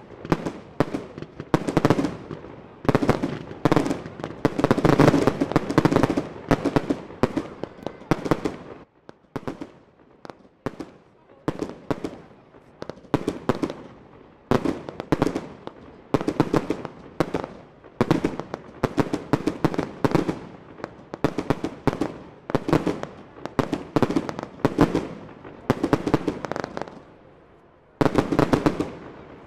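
Professional fireworks going off in rapid series of sharp launch shots and bursts. A dense barrage for the first several seconds, a short lull, then shots about one a second, a brief pause and a last quick flurry near the end.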